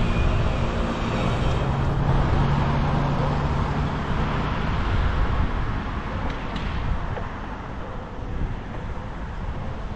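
Car traffic on the road beside a moving bicycle, with a steady engine hum from a passing vehicle for a couple of seconds early on, easing off in the second half.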